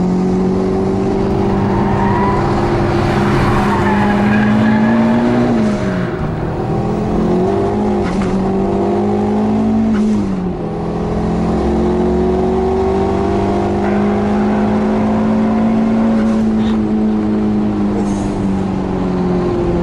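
Fiat 600's turbocharged 1.2-litre eight-valve Fiat Punto engine running hard on a circuit lap. The engine note climbs steadily and drops sharply about 6 and 10 seconds in, then climbs again.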